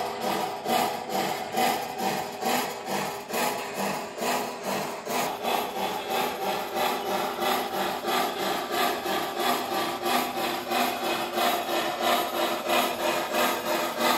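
O scale model steam locomotive's electronic sound system chuffing in a steady, even rhythm, with the running noise of trains on the track underneath.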